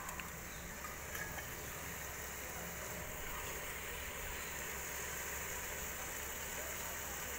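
Steady hiss of chicken curry cooking in a metal pot on a portable gas burner, with a couple of faint clicks about a second in.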